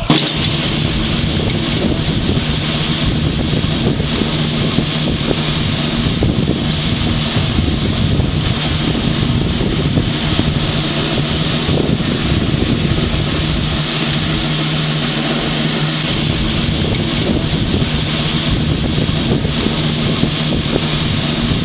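Steady wind buffeting the microphone, with a low steady hum underneath.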